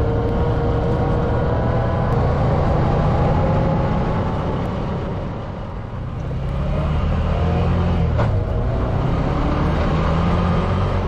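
Off-road vehicle engine running, easing off about five seconds in and then picking up again. A single sharp knock about eight seconds in.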